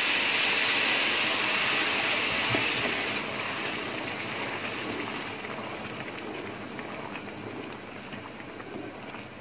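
Boiling water poured onto rice frying in hot oil in a pot, setting off a loud hissing sizzle that fades steadily as the pot settles into a bubbling boil.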